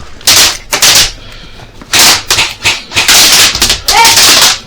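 Airsoft guns firing several short full-auto bursts close by, with a brief shout near the end.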